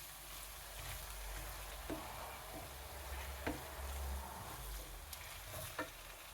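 Vegetables sizzling in a pot on the stove as they are stirred, with a couple of light knocks about two and three and a half seconds in.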